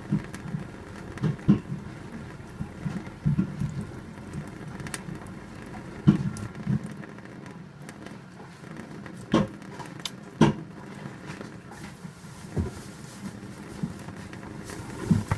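A thin stream of running water pattering steadily, broken by irregular splashes and thuds as a budgerigar bathes under it, with a few sharper splashes around the middle.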